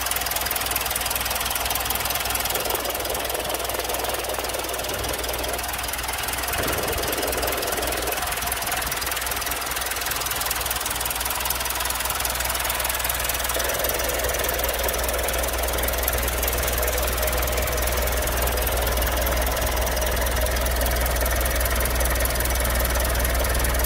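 2007 Nissan Cabstar truck's four-cylinder diesel engine idling steadily, heard close up in the open engine bay.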